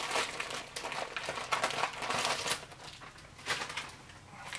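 Plastic MRE accessory packet crinkling as it is handled and emptied, in irregular rustles that thin out near the end.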